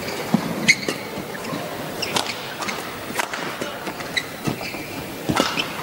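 Badminton rally: a string of sharp racket strikes on the shuttlecock, with brief shoe squeaks on the court floor, over a steady arena background hum.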